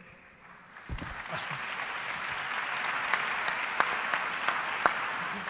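Audience applauding with many individual claps. It starts about a second in, swells, and begins to fade near the end.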